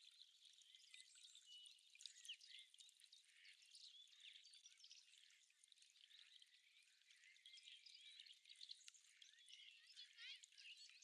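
Faint chorus of many small songbirds: overlapping quick chirps and short whistled notes, all high-pitched, with no low sound beneath.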